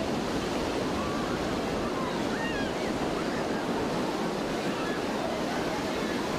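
Ocean surf breaking and washing in a steady rush, with a few faint high calls now and then.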